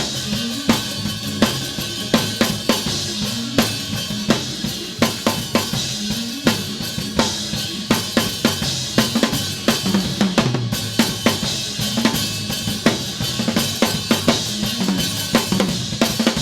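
Up-tempo live gospel band music in a Pentecostal praise break, driven by a drum kit with rapid snare and cymbal hits and bass drum over a moving bass line.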